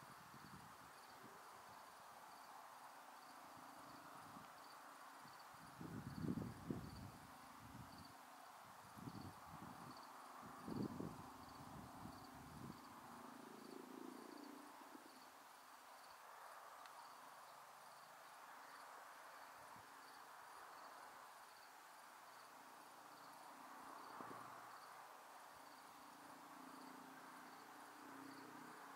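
Near silence with a single cricket chirping faintly and evenly, about two chirps a second, and a few dull low bumps about six and eleven seconds in.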